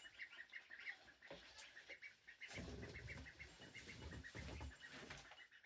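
Ducklings peeping faintly in quick, evenly spaced short peeps. About halfway through, a low muffled rustle of handling rises over them.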